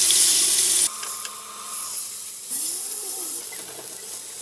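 Thick beef chuck steaks sizzling in hot peanut oil in a frying pan. The sizzle is loud at first and drops suddenly to a quieter, steady sizzle about a second in, swelling slightly again past the middle.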